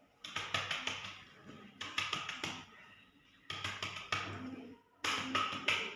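Cupped-hand chest percussion (clapping) over the patient's upper left lung: quick pats in four short bursts, each under a second. It is done to loosen sputum so it can be coughed up.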